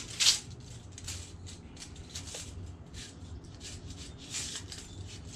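Light, irregular rustling and scraping of a cone-shaped fabric syrup filter and a tape measure being handled, a little louder just after the start, over a faint steady low hum.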